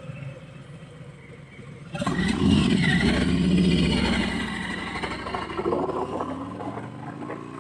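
Harley-Davidson Sport Glide's Milwaukee-Eight 107 V-twin running low, then blipped open about two seconds in: the exhaust note jumps up loudly, rises in pitch, and eases back down over the following seconds.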